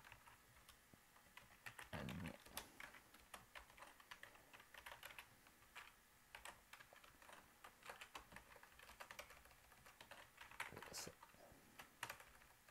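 Faint computer-keyboard typing: quick, irregular runs of keystroke clicks.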